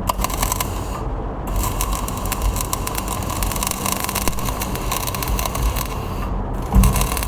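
Electric arc welding crackling and sizzling steadily, the arc breaking off briefly about a second in and again near the end.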